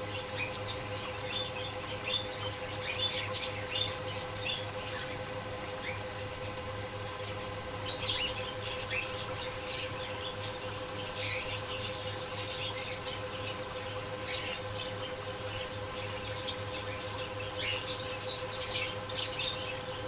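Small caged birds chirping in short, scattered bursts over a steady hum.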